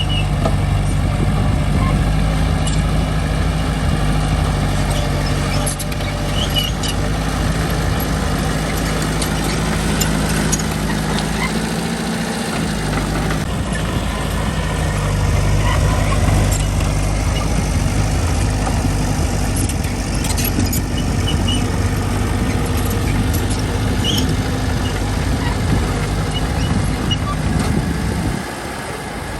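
Diesel engine of construction machinery running steadily, with scattered sharp clicks and clanks. The low engine note drops away briefly about twelve seconds in and again just before the end.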